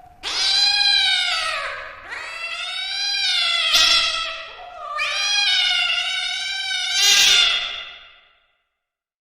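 Domestic cat giving three long, drawn-out meows in a row, each bending in pitch, the last one swelling louder before fading out.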